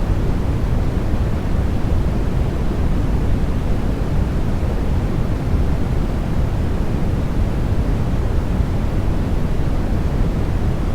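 Steady sleep noise of the kind sold as white noise, even and unchanging, weighted toward the low end so it sounds deep rather than hissy.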